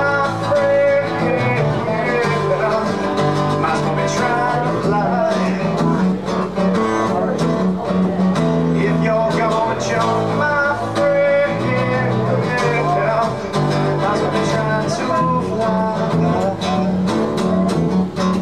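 Acoustic guitars playing a country-style song live, a steady passage of picked notes and chords with no words heard.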